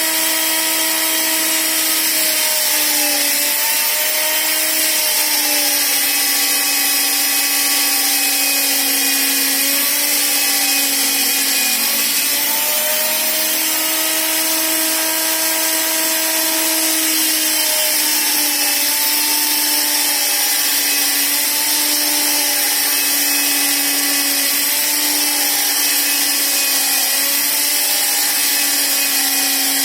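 Electric power tool motor running continuously, its pitch dipping and recovering several times.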